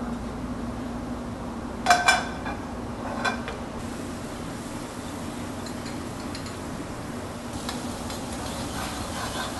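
Metal utensils clanking against stainless-steel pans in a commercial kitchen: two sharp knocks about two seconds in, another a second later, and lighter clinks near the end, over a steady hum.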